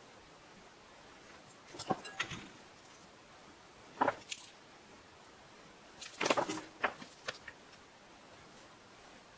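Light clicks and taps from metal tweezers and a soldering iron tip handling a small memory chip on a work mat. They come in three short clusters, the longest near the end, over a faint steady hiss.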